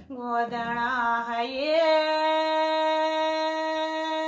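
A woman singing a Kumaoni jhoda devotional song: a short rising phrase, then one long held note.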